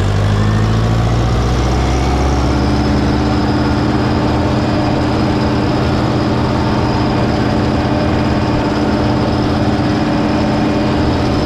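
Old tractor's diesel engine running steadily at full throttle while the tractor drives along, its pitch climbing slightly in the first second and then holding even.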